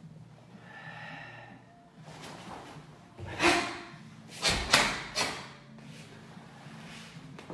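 A karateka performing Gankaku kata: breathing noises, a loud forceful burst about three seconds in, then three sharp quick impact sounds in close succession over the next couple of seconds.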